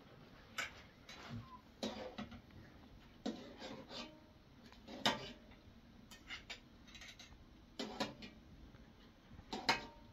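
Dishes and cutlery clinking and knocking now and then, a dozen or so short sharp strikes at uneven intervals, a few of them ringing briefly.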